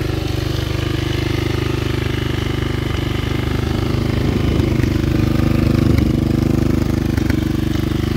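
Bashan quad ATV engine idling steadily, getting a little louder for a couple of seconds in the middle.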